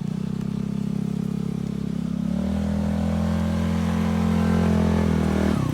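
Polaris RZR 170's small single-cylinder engine running under way, its note growing louder and a little higher about two seconds in, then dipping briefly at the very end.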